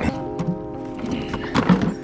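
Background music with sustained notes, over a few hollow knocks about half a second in and again near the end.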